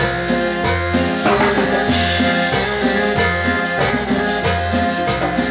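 A live band playing upbeat Latin dance music, with a repeating bass line under a steady percussion rhythm.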